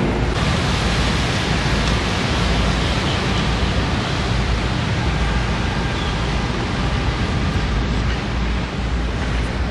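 Steady rushing noise of a motorboat under way: wind buffeting the microphone, with water rushing past the hull and a low rumble.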